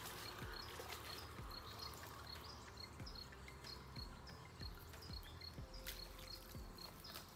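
A cricket chirping steadily, about two chirps a second, over faint water splashing and trickling at the bank's edge as a small catfish is landed.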